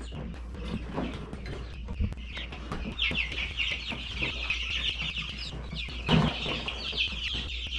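A brooder full of young chicks peeping, many short falling peeps overlapping, growing busier about three seconds in. A single thump about six seconds in.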